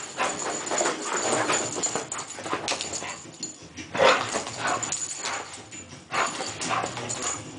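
Bull terrier playing wildly on a fabric sofa: scrambling and scuffling on the cushions mixed with short dog vocal sounds, with sudden louder bursts about four and six seconds in.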